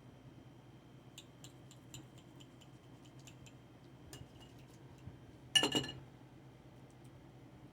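Cutlery clicking lightly against a plate, then one louder, ringing clink about five and a half seconds in.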